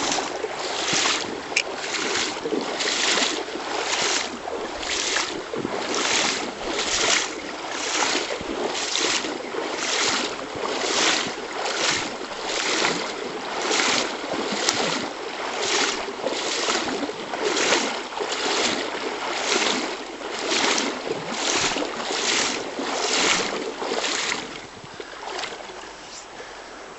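Footsteps at a steady walking pace, a little over one a second, each step a rough swish through wet grass or vegetation, over the steady noise of a river. The steps stop about 25 seconds in, leaving only the river.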